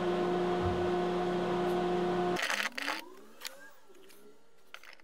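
A steady machine hum that cuts off abruptly about two and a half seconds in, followed by a few faint knocks and taps of wooden blocks being handled.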